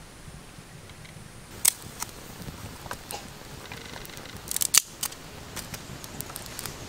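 Small fire of dry twigs burning, with scattered sharp crackles and snaps; the loudest cluster of snaps comes about two thirds through.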